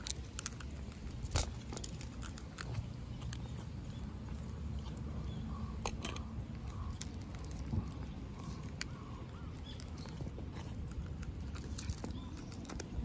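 Black-and-white cats eating dry kibble, with irregular crisp crunches as they bite and chew the pellets, over a steady low outdoor rumble.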